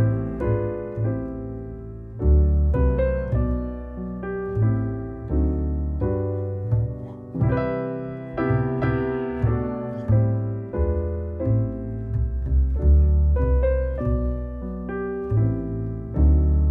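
Background piano music: a run of single struck notes over a repeating bass line.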